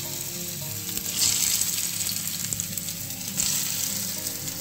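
Oil sizzling on a flat tawa as stuffed wheat-dough rolls shallow-fry: a steady hiss that swells louder about a second in and again after about three seconds.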